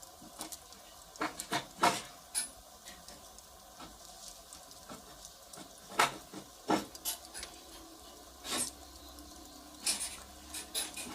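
Wood fire crackling, with irregular sharp pops and snaps from the burning firewood over a low hiss; a few louder pops stand out, about a second in, near the middle and toward the end.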